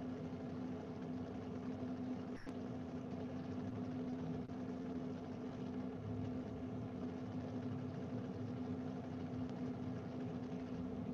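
Steady low machine-like hum, the background noise of an open microphone, with one faint click about two seconds in.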